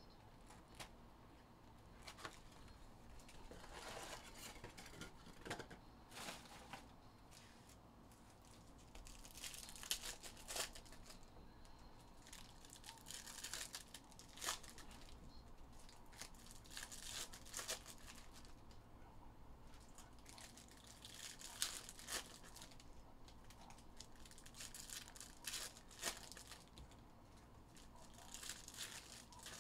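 Silver foil wrappers of 2022 Topps Chrome Jumbo baseball card packs being torn open and crinkled, with cards handled, in faint irregular rustling bursts.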